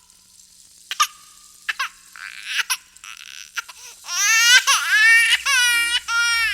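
Infant crying: a few short sobs and catches of breath, then from about four seconds in, loud high-pitched wailing cries broken by brief breaths.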